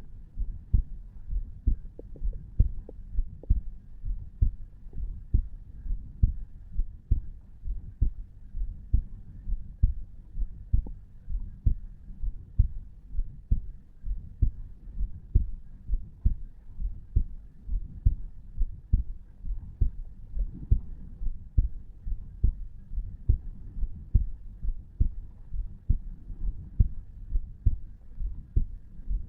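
A man's heartbeat, recorded over the tricuspid valve at rest, beating steadily at about one beat a second (60–70 a minute).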